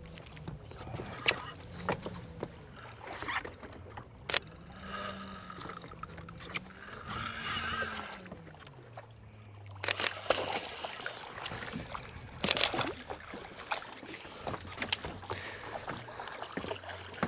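Boat motor running, its pitch rising and falling as it is throttled up and back down, with scattered sharp knocks around the boat.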